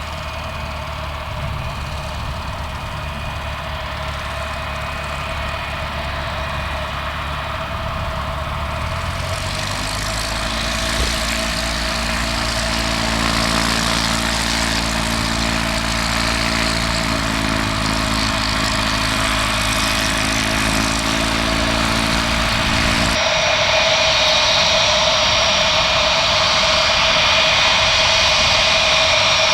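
The four Pratt & Whitney JT3D turbofans of a Douglas DC-8-55F running on the ground, with a steady high whine over a low rumble, growing louder. About two-thirds of the way through, the low rumble drops away abruptly and a brighter, hissing jet noise takes over.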